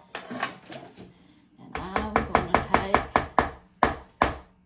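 A silicone spoon stirring thick chocolate chip zucchini bread batter in a mixing bowl. From about two seconds in it knocks against the bowl in a rapid run of about six knocks a second, slowing to a couple of single knocks near the end.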